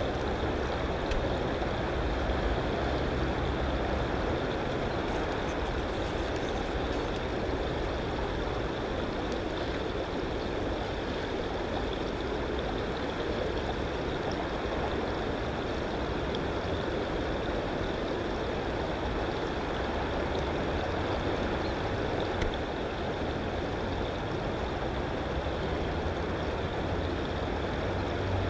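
Steady rushing background noise with a low rumble.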